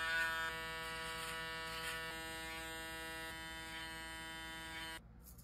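Cordless electric hair trimmer buzzing steadily as it runs at the neckline; it cuts off suddenly near the end.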